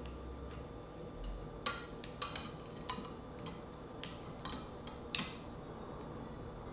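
A small metal spoon clicking and scraping against a glass bowl of dipping sauce: a handful of light, separate clinks about half a second to a second apart, over a faint steady hum.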